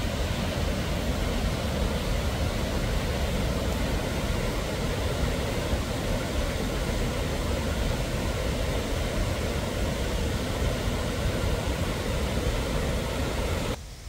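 Steady rush of water from a forest stream and a tiered waterfall cascade, cutting off abruptly just before the end.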